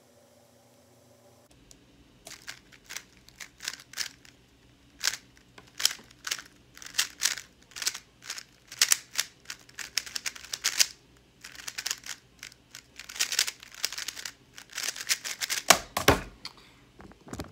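Gan 356 SM stickered 3x3 speedcube being turned fast in a speed solve: rapid clicking and clacking of the layers in quick flurries. About a second before the end comes a single thump as a hand comes down to stop the timer.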